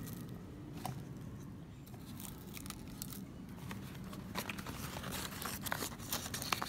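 Crinkling, crackling and light tearing as an egg tart in its foil cup and a cardboard box are handled and the tart's flaky pastry crust is picked apart. The small crackles come thicker in the second half.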